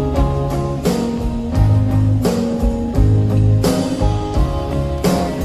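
Live band playing an instrumental passage: guitar over bass and a drum kit, with cymbal strokes at an even, unhurried pace and no singing.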